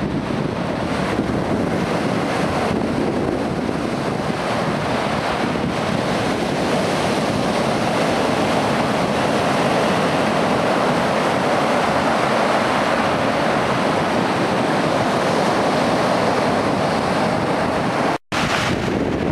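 Lake Superior surf: choppy waves breaking into foam and washing over flat bedrock shoreline in a continuous rushing noise, with wind buffeting the microphone. The sound cuts out for an instant near the end.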